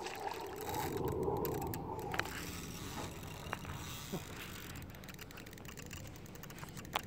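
Fishing reel ticking rapidly as a hooked sturgeon pulls against the line, with a rushing noise over the first two seconds.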